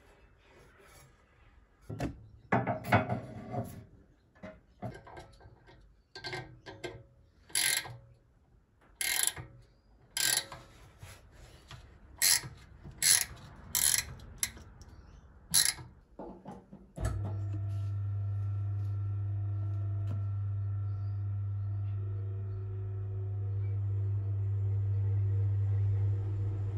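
Clicks and knocks of hand work on the drive assembly of a Venco No. 5 potter's wheel. About two-thirds of the way in, the freshly overhauled wheel's electric motor switches on and runs with a steady hum, a little louder near the end.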